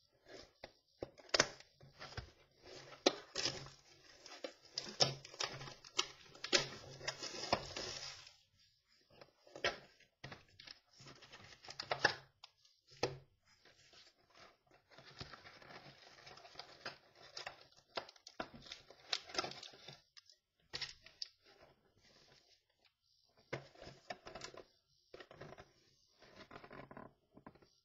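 Football trading-card box and packs being torn open and handled: wrapping tearing and crinkling, with many short clicks and rustles. The handling is busiest for the first several seconds, then comes in scattered bursts.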